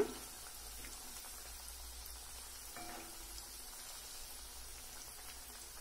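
Hot oil sizzling steadily as breadcrumb-coated banana cutlets deep-fry in a pan.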